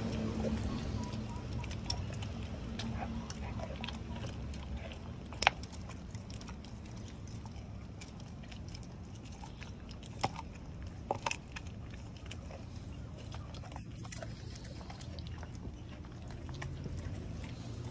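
American Pit Bull Terrier chewing and gnawing a chunk of raw meat, with scattered short clicks and a few sharper snaps, the loudest about five seconds in. A steady low background rumble runs underneath.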